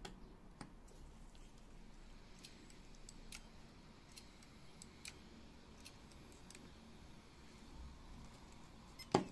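Faint, irregular small ticks from handling the opened hard drive and its USB adapter board, then one sharp click near the end as the mini-USB plug is pulled from the board's socket.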